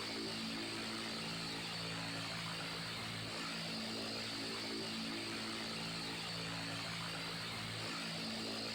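Electric fan running steadily: an even whooshing hiss with a low hum underneath that shifts in pitch every few seconds.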